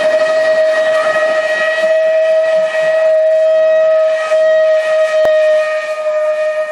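Steam locomotive whistle sounding one long, steady blast at a constant pitch.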